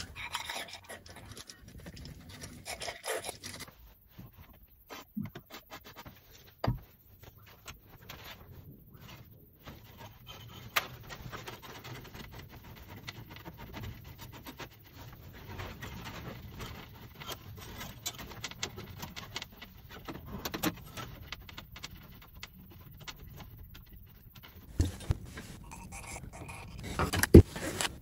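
Wire scraping and rubbing as it is fed into a blocked fuel pipe to clear it, with a few sharp knocks and clicks.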